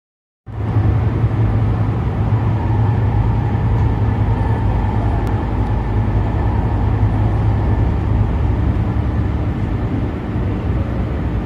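Metro Gold Line light rail train running, heard from inside the passenger car: a steady low rumble with faint steady whining tones above it, starting about half a second in.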